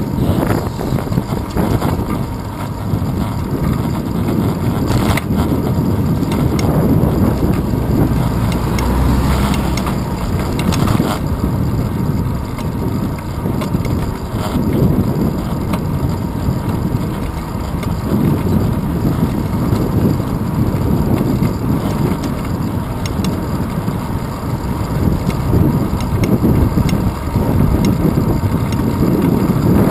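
Wind rush and road rumble picked up by a handlebar-mounted camera on a bicycle rolling along an asphalt street: a low, uneven rushing noise.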